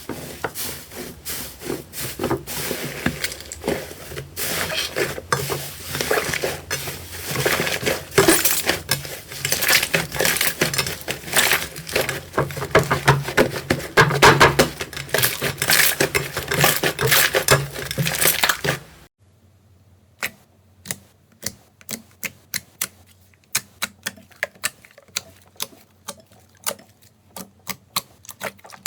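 Slime being squeezed and pressed by hand, giving a dense run of crackling clicks and pops. About two thirds of the way through it cuts to a quieter stretch of separate sharp clicks, two or three a second.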